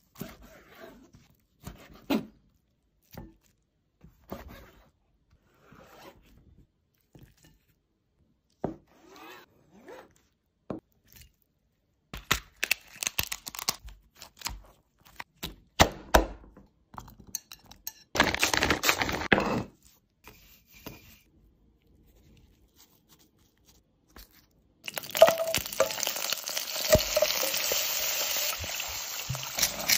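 Kitchen shellfish preparation: scattered clicks, cracks and knocks of a knife and serrated shears cutting through lobster and crab shell. Near the end comes a steady sizzle of the pieces being stir-fried in a wok.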